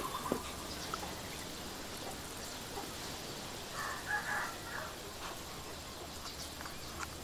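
Quiet rural outdoor ambience, with a bird calling briefly about four seconds in.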